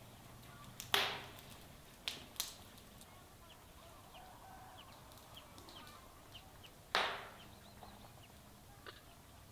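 A few sharp knocks with a short ringing tail: about a second in, twice around two seconds, and a louder one near seven seconds, with faint short chirps in between.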